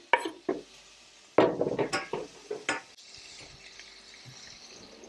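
Knife scraping diced onion off a wooden cutting board into a stainless steel frying pan of melted butter: a run of knocks and clinks, loudest in the middle. From about three seconds in, the onion frying with a faint steady sizzle as the knife stirs it.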